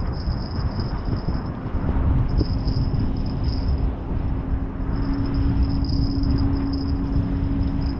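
Wind noise rumbling on an outdoor microphone, with a steady low hum underneath and a thin high whine that comes and goes every second or so.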